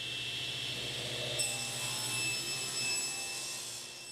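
Table saw blade spinning at full speed with a steady high whine, and from about a second and a half in the blade crosscutting a small hardwood board held in a crosscut sled. The sound fades out near the end.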